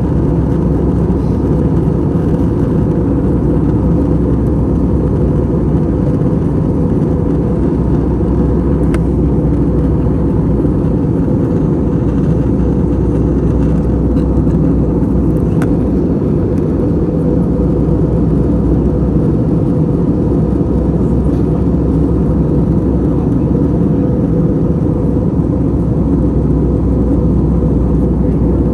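Steady cabin drone of an Airbus A321 in flight, the roar of its IAE V2500 engines and the airflow heard from inside the passenger cabin. Two faint clicks sound partway through.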